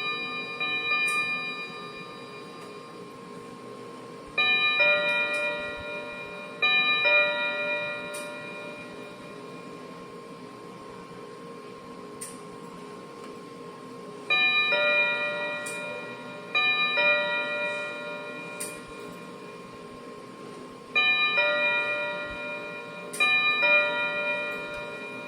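Wireless doorbell receiver playing its short electronic multi-note chime seven times, mostly in pairs about two seconds apart, each chime fading out over a couple of seconds.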